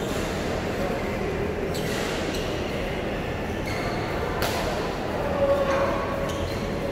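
Badminton hall ambience: a steady rumble with a few sharp racket-on-shuttlecock hits from neighbouring courts, and a short held tone about five seconds in.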